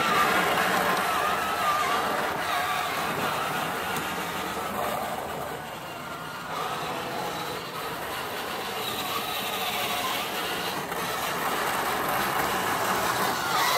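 Remote-control 1/6 scale M5 Stuart tank's electric drive motors and gearbox whining, the pitch wavering up and down with speed. The sound fades as the tank drives off, is quietest about six seconds in, and grows louder again near the end as it comes back.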